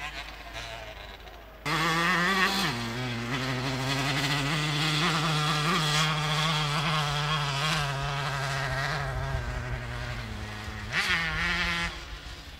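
Vintage moped's small two-stroke engine running hard under load, climbing a hill. The note comes in suddenly, drops sharply in pitch about a second later and holds steady, then rises briefly near the end before falling away.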